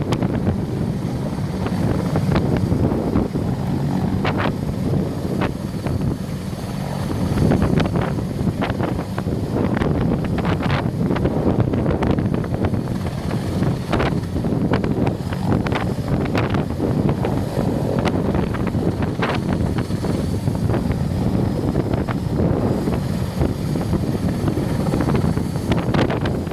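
Large helicopter running near the ground, a steady low rotor thrum with a faint high turbine whine above it, and gusts of rotor wash buffeting the microphone with scattered short knocks.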